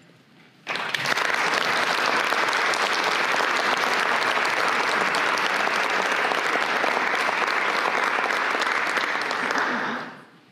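Audience applauding: a dense, steady clapping that starts abruptly under a second in and dies away near the end.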